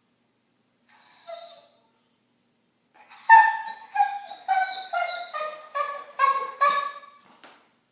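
A dog whining and yipping: a faint high whine about a second in, then a run of about nine short, pitched yelping whines, roughly two a second, each sliding down in pitch.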